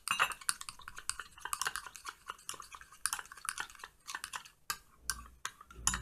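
A spoon stirring flour into melted coconut oil in a glass bowl. It makes quick, uneven clicking and scraping against the glass.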